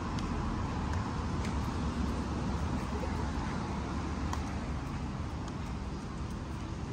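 Steady outdoor street background noise, a low hum of passing traffic, with a few faint ticks.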